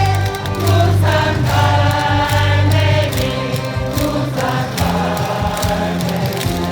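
Stadium crowd of baseball fans singing a cheer song together over loud amplified backing music.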